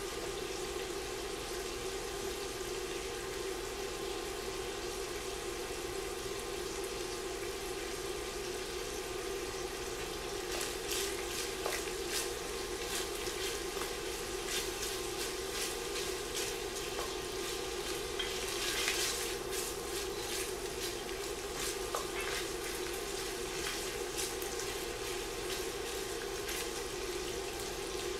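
Bacon pieces frying in an enameled cast-iron Dutch oven, sizzling steadily as the fat renders. From about ten seconds in, the popping crackles grow busier, with a wooden spoon stirring the pieces in the pot; the loudest burst comes shortly before the middle.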